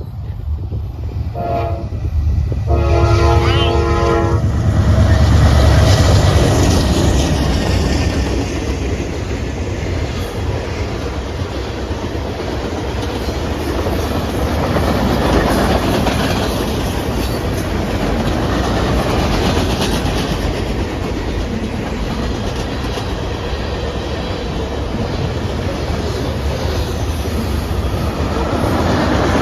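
Norfolk Southern manifest freight train passing a grade crossing: the locomotive horn sounds a short blast and then a longer one about two seconds in, the diesel locomotives pass loudly a few seconds later, and the freight cars then roll by with steady wheel clatter on the rails.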